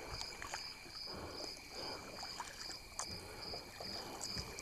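Kayak paddle strokes dipping and swishing through calm water, about one a second, with small drips and knocks. Behind them, a high insect chirp pulses evenly throughout.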